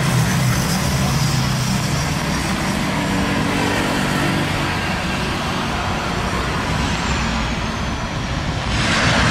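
Boeing 737 jet airliner on final approach, its two turbofan engines running with a steady rush and low hum, and a faint whine falling in pitch. Near the end the rush grows suddenly louder as the jet touches down.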